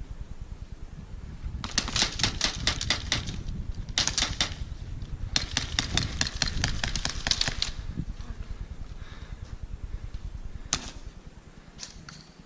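Airsoft pistol shots fired in quick strings of rapid snaps, about seven a second, in three bursts over a few seconds, then two single shots near the end. A low rumble of movement runs underneath.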